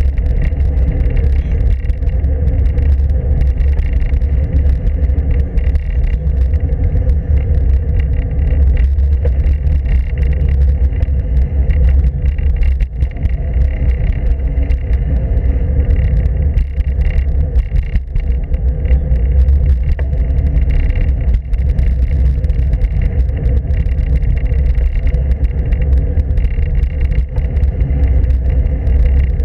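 Wind and road rumble on a road bike's handlebar-mounted action camera while riding: a loud, steady, deep buffeting roar with tyre noise from the asphalt carried through the mount.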